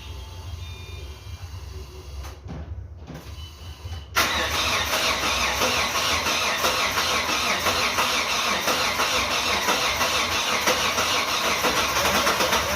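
Freshly rebuilt Mitsubishi Pajero 6G72 V6 engine cranked over and running, starting abruptly about four seconds in and running loud and steady after it. Before that there is only a low hum.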